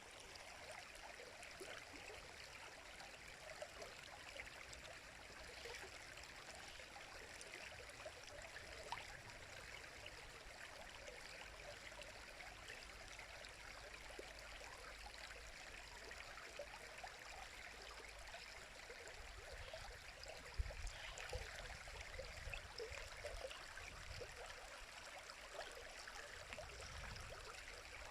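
A river's water running and babbling steadily over stones, a soft continuous rush with many small trickling splashes. Irregular low rumbles join it in the last third.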